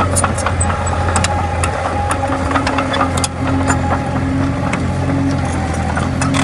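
Komatsu D20A bulldozer's diesel engine running steadily, with frequent sharp clicks and knocks over it.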